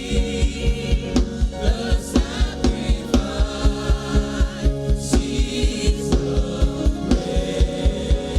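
Gospel worship music: sung voices over a band, with a fast, steady low beat of about five pulses a second.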